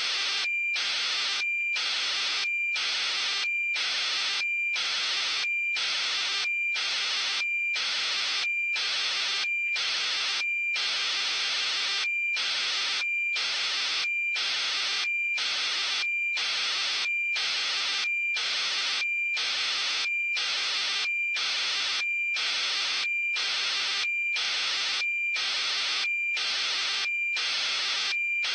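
Steady hiss of radio static with one high steady tone in it, chopped by short regular dropouts about one and a half times a second.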